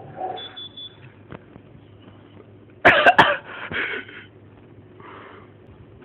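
A short bout of coughing about three seconds in: one loud cough, then two or three weaker ones, and a faint one near the end.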